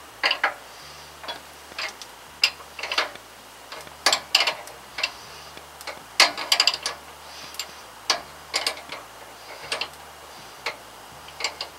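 An 18 mm wrench ticking and clinking against a hydraulic hose fitting as the fitting on top of the loader cylinder is unscrewed. The metal clicks come at irregular intervals, sometimes in quick clusters.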